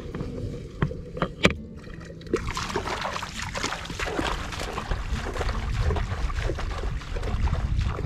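A few sharp knocks, then water splashing and sloshing steadily from about two seconds in, over a low rumble.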